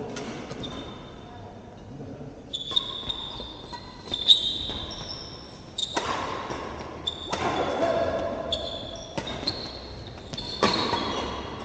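A badminton rally echoing in a large hall: several sharp racket strikes on the shuttlecock, with short high sneaker squeaks on the court floor between them.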